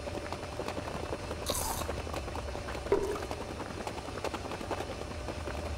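Treadmill running, its motor a steady hum with a faint whine, under a runner's footfalls on the belt. A short hiss about one and a half seconds in.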